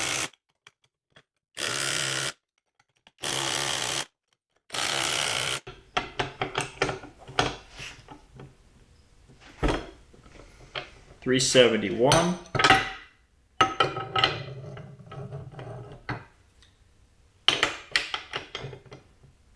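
Skil 12V impact driver hammering a bolt in high mode in four short bursts, each just under a second, over the first five seconds or so. These are followed by irregular metallic clicks and clanks as a torque wrench is fitted to the bolt and pulled to break it loose.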